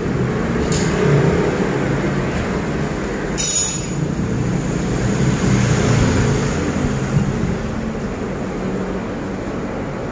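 Steady low background rumble, with brief rustles of leafy mustard greens being handled about a second in and again after three seconds.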